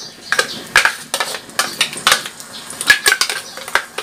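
Metal ladle clinking and scraping against a blender jar and the wok in quick, irregular knocks as thick blended chili paste is scraped out into the pan.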